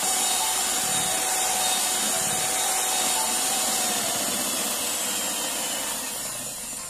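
Panasonic electric hand mixer running steadily, its beaters whipping eggs, sugar and SP emulsifier in a stainless steel bowl toward a thick, pale ribbon-stage foam. The sound fades somewhat over the last two seconds.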